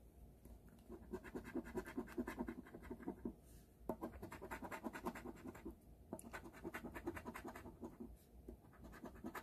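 Scratch-off lottery ticket being scratched, rubbing the coating off in rapid, closely spaced strokes. The strokes come in several runs broken by brief pauses.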